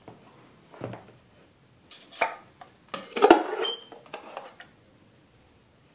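A red plastic cup knocking against a glass bowl as hot water is scooped up. There are a few separate clatters, with the loudest cluster about three seconds in.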